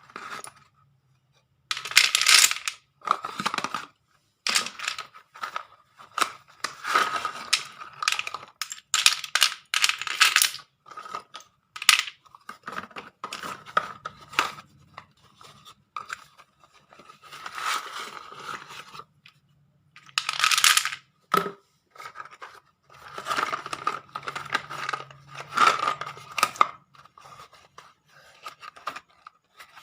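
Packaging being torn open and handled in irregular bursts, with hard clicks and clinks of slate pencils knocking together.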